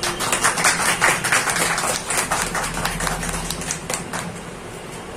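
A small group of people applauding by hand, dense clapping that thins out and stops about four seconds in.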